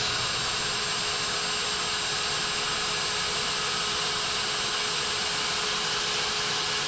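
Router spinning a profile bit, running steadily with a high whine over a loud hiss as it carves lettering into the wood.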